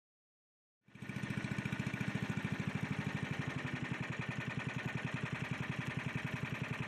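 Small boat engine running steadily with a fast, even putter, starting abruptly about a second in.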